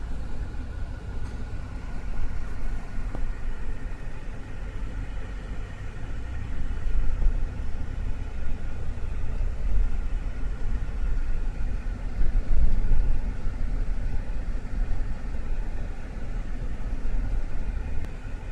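Steady low rumble of a car's engine and tyres, heard from inside the cabin while driving slowly through town traffic.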